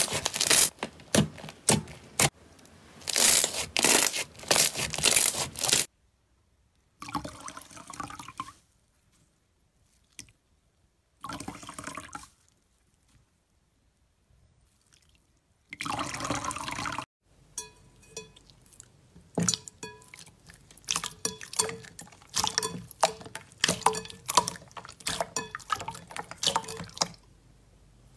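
Slime being squeezed and pressed, making wet squishing, crackling and popping sounds. The clicks and pops come in short takes separated by brief silences, dense at first, then sparse, then many quick pops near the end.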